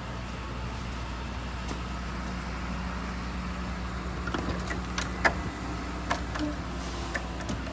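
Steady low hum with a handful of sharp knocks and clicks in the second half, the loudest a little past five seconds in: footsteps and door handling while stepping into a motorhome.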